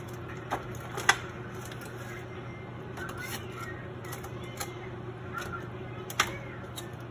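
Metal fork clicking and scraping against a foil-lined aluminium pan, with light foil crinkling, as smoked pork butt is pulled apart in its juices. The sharpest clicks come about a second in and again near the end, over a steady low hum.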